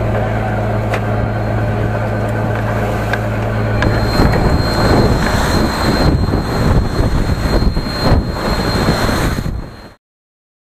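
A fishing boat's engine running with a steady low hum; from about four seconds in it becomes louder and rougher. It cuts off abruptly near the end.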